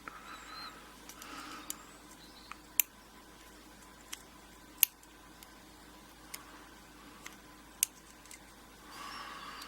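Sparse small metallic clicks and taps of tweezers picking the tiny pins and springs out of a pin-tumbler euro cylinder's pin chambers, with three sharper clicks standing out.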